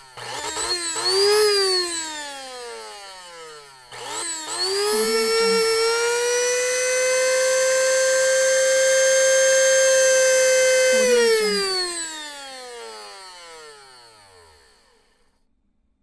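Electric coffee grinder grinding beans. A short pulse of the motor winds up and spins down, then about four seconds in it is switched on again. Its whine rises and holds steady for several seconds, then it is switched off and winds down to a stop with a falling pitch.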